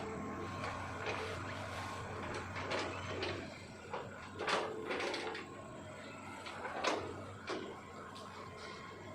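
Hitachi ZX200-5G excavator's diesel engine running steadily under load, with several sharp cracks and knocks as the bucket chops through felled oil palm trunks.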